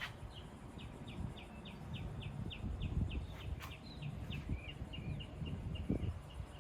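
A bird calling a rapid series of short, high chirps, about three or four a second, with a few slurred notes in the middle of the run, over a low outdoor rumble.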